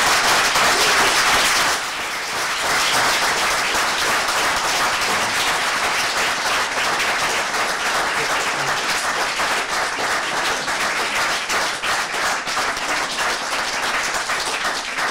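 Audience applause: many people clapping together, loudest in the first two seconds, then easing slightly and holding steady.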